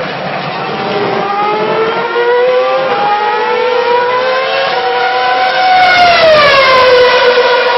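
Formula One 2.4-litre V8 engine running at very high revs, a high-pitched note whose pitch climbs steadily for several seconds, then falls sharply about six seconds in as the car passes or slows.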